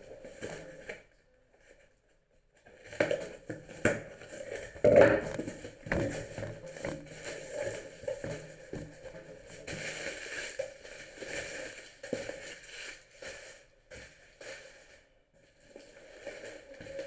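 Crinkling and crackling of packaging being handled, with irregular knocks and taps; the loudest knocks come about three to six seconds in.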